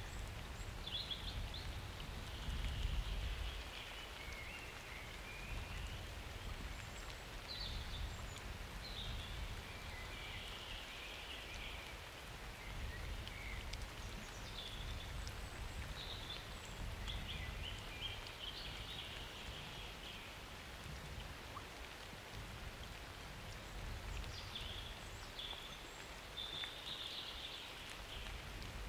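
Steady summer rain falling, with short high chirps scattered over it and a low rumble in the first few seconds.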